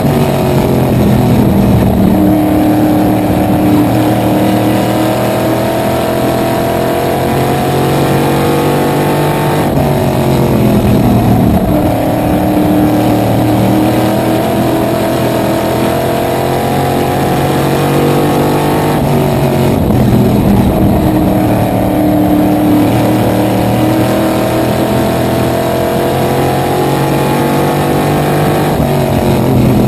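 Small-block V8 of a supermodified race car heard from the open cockpit, run hard around an oval: its pitch drops as the driver lifts for each end of the track, about every ten seconds, then climbs again down the straights.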